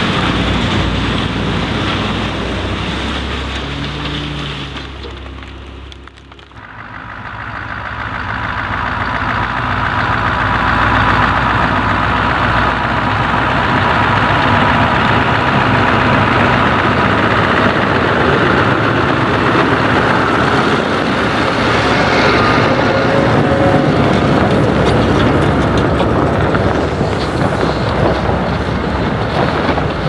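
Scania R620 truck with a truck-mounted Bruks wood chipper running and chipping branches, its engine note shifting under load. After a cut about six seconds in, the Scania R620 8x4 with its trailer drives up a snowy forest road, growing louder over several seconds and passing close by with a steady engine and tyre noise.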